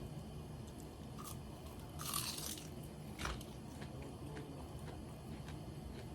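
A person biting into crispy karaage (Japanese fried chicken), with one loud crunch about two seconds in, a sharp click a second later, and quieter chewing ticks around it.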